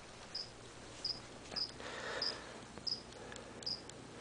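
A cricket chirping faintly and steadily, one short high chirp about every two-thirds of a second. A few faint clicks and a soft rustle about two seconds in.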